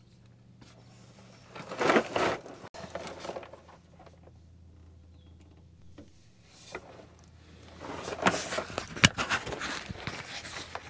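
Hands-on work with parts and tools: a burst of rustling and scraping about two seconds in, then a denser run of scraping and sharp metallic clicks near the end, over a faint steady low hum.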